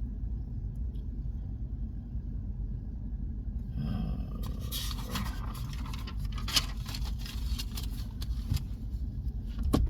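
Steady low rumble, with about three seconds of scraping and rustling in the middle.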